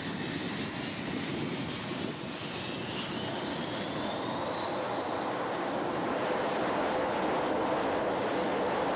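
Carrier jet fighter's turbojet engine running up on the catapult, its whine rising in pitch over the first five seconds. The sound then grows into a louder, steady rush as the engine reaches launch power.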